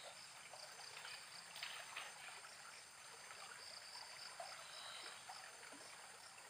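Faint flowing river water, a quiet steady rush with a few small ticks.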